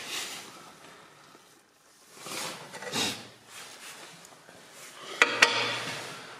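Rustling and scraping of objects being handled, with two sharp clicks a little after five seconds in.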